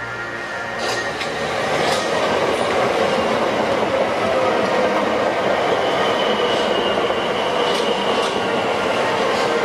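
Southeastern electric multiple unit passing close by, a loud steady rumble with its wheels clicking sharply over rail joints a few times and a steady high whine coming in about halfway through. Background music fades out in the first second or so.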